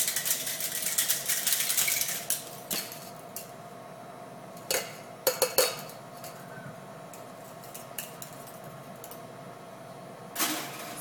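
Metal cocktail shaker tins being dry-shaken with a strainer spring rattling inside, whipping the egg white without ice: a fast metallic clatter for about two seconds. Then a few separate metal clinks as the tins are knocked apart, and a single knock near the end as a tin is set down on the bar.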